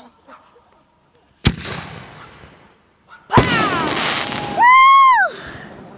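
Two consumer firework bangs about two seconds apart. The second is followed by about a second of crackling hiss with falling whistling tones. Then comes a loud, drawn-out cry that rises and falls.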